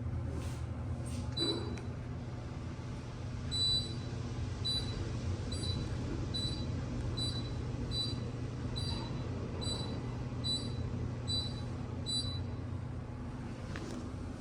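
KONE elevator signal beeping: a short high electronic beep repeating about every 0.8 s, roughly a dozen times, then stopping, over the steady low hum of the elevator car.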